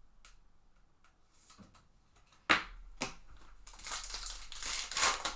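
Light clicks of cards being handled, then a sharp snap about two and a half seconds in and a stretch of crinkling near the end: a foil trading-card pack wrapper being torn open.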